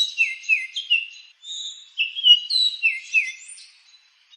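Sparrow chirping: quick high chirps and short falling notes in two bursts, the second starting about a second and a half in, fading out near the end.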